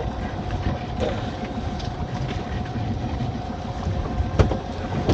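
Small fishing boat's engine and pot-hauling gear running steadily, with a steady whine over a low rumble. A single sharp knock comes a little over four seconds in.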